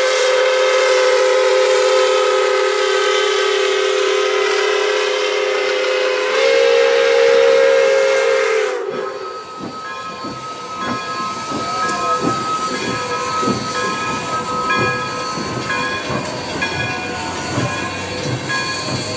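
Steam whistle of Pere Marquette 1225, a Berkshire steam locomotive, blowing one long chord that opens up louder about six seconds in and cuts off near the middle. After it comes the locomotive's exhaust in even beats with steam hissing as the train works away.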